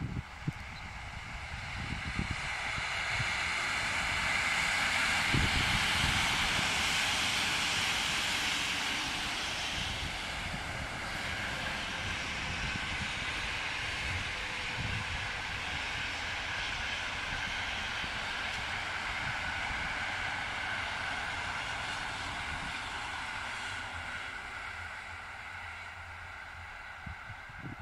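An EP07 electric locomotive hauling a passenger train passes by. A rushing noise of wheels on rails swells over the first few seconds, holds as the train goes past, then fades near the end.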